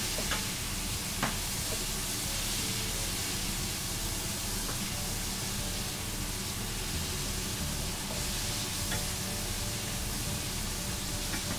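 A spoon stirring thick, wet liver pâté batter in a large stainless-steel stockpot, a steady stirring sound, with a couple of knocks of the spoon against the pot in the first second or so.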